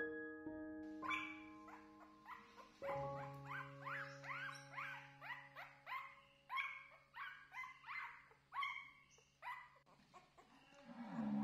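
A puppy yelping and whimpering over and over, about two short high-pitched cries a second, over soft piano music.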